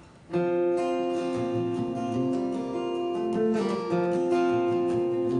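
Live band starting a song's instrumental intro: acoustic guitar strumming chords, coming in sharply about a third of a second in.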